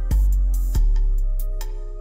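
Background music: a groove with deep bass notes and a ticking hi-hat over sustained keyboard-like tones.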